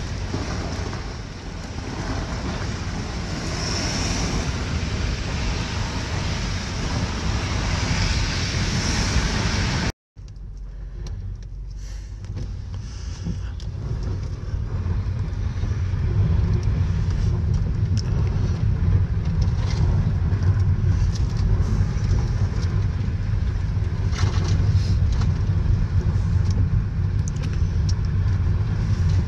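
A Toyota car driving on wet, slushy roads, heard from inside the cabin. For about ten seconds there is a steady hiss of tyres on the wet road. After a brief cut to silence, a steady low road and engine rumble takes over and grows louder.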